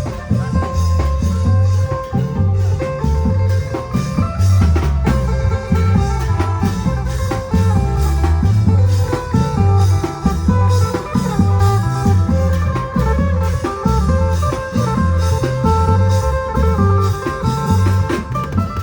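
Thai klong yao long-drum band music: a steady, heavy drum beat with a melody played over it.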